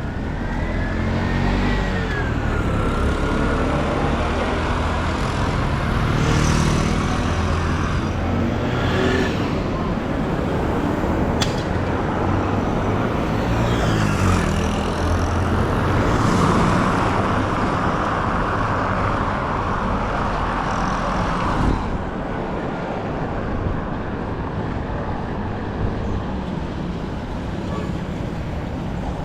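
Street traffic: motor vehicle engines running and several vehicles passing close by, with one sharp click about a third of the way through. The traffic eases slightly for the last several seconds.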